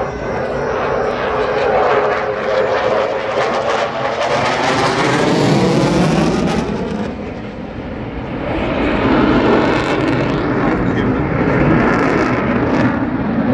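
Eurofighter Typhoon fast jet flying past, the noise of its twin EJ200 turbofans loud and continuous with a sweeping, phasing quality as it moves across the sky. The sound swells twice, with a short dip about halfway through.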